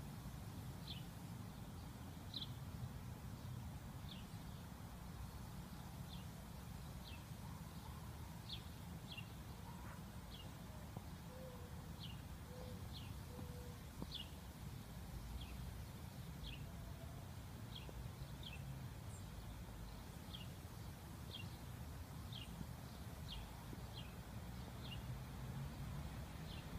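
A bird calling with short, high chirps, each dropping slightly in pitch, repeated irregularly about once a second over a low, steady rumble.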